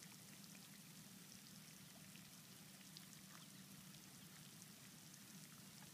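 Near silence: a pond fountain spraying faintly and steadily.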